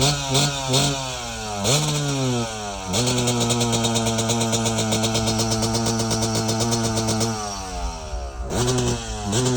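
Motorcycle engine running: the throttle is blipped three times quickly, revved once and let fall, then held at a steady fast idle for several seconds, drops back, and is revved again near the end.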